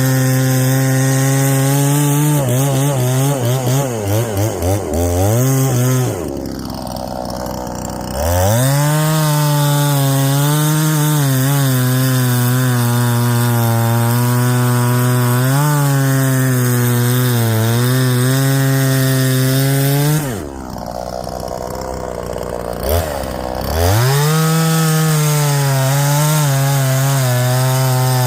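Small two-stroke chainsaw cutting wood at full throttle, with its revs wavering in the cut. Twice it drops back to idle for a couple of seconds, then revs up again into the next cut.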